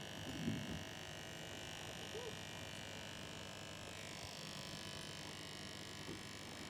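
Corded electric pet clippers running with a steady, quiet hum. A brief low vocal sound comes about half a second in.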